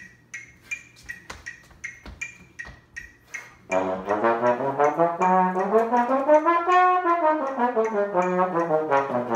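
A steady ticking beat, about three ticks a second. Then, a little under four seconds in, a brass instrument comes in with one long held note that slides smoothly up in pitch and back down.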